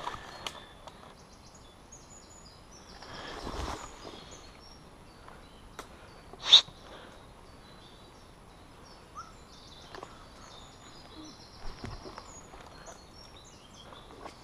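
Outdoor field ambience with faint birds chirping throughout. There is a brief rustle of movement about three to four seconds in, and a single short, sharp crack about six and a half seconds in.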